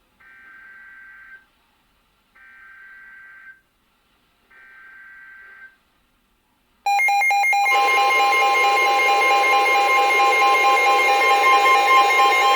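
Emergency Alert System signal on NOAA Weather Radio: three short bursts of SAME digital header data, about a second each with a second's gap between them. About seven seconds in, the loud, steady alert attention tone begins.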